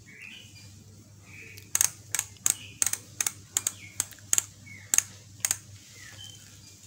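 Pacific cup-and-cone freehub ratcheting as its freehub body is turned by hand: about a dozen sharp, separate pawl clicks at an uneven pace, starting about two seconds in and stopping about five and a half seconds in. The clicks are loud, from pawl springs just replaced with stiffer 1.2 mm wire.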